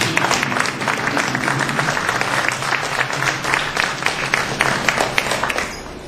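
Theatre audience applauding, a dense patter of clapping that dies away near the end.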